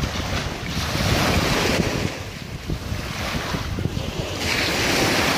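Small sea waves breaking and washing up a sandy beach, surging twice, with wind buffeting the microphone.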